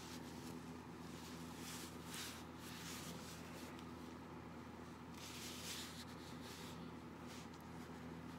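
Soft, intermittent rustling of cloth as hands handle a silicone doll and adjust its cloth diaper, the longest rustle about five seconds in, over a steady faint hum.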